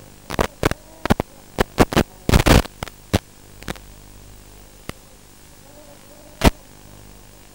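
Steady electrical hum with static hiss, broken by a rapid string of short, loud crackles of static in the first three seconds and a few single ones later: the audio of an analog FPV drone video feed with interference.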